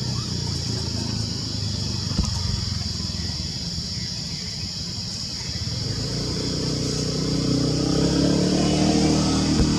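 A motor vehicle engine running, growing louder from about six seconds in as it draws nearer, over a steady high-pitched hum.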